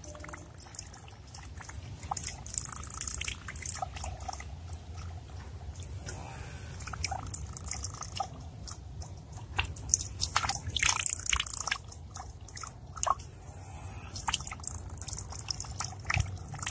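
Water splashing and trickling in a large water jar, with many irregular drips and small splashes over a steady hiss.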